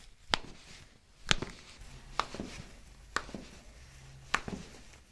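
A series of sharp clicks or taps, five in all, spaced roughly a second apart.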